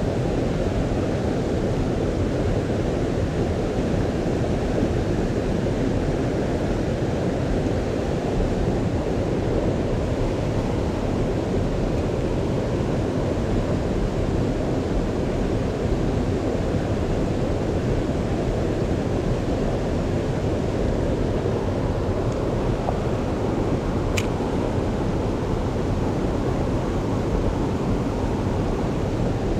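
Steady, even rush of stream water, strongest in the low range and unchanging throughout. One brief faint click comes about 24 seconds in.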